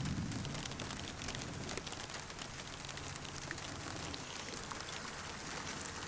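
Steady rainfall, with many small drop hits on nearby surfaces and a low rumble that is strongest in the first half-second.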